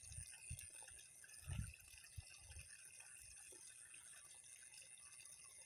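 Near silence: faint water sounds with a few soft low thumps in the first couple of seconds, then only a faint steady hiss.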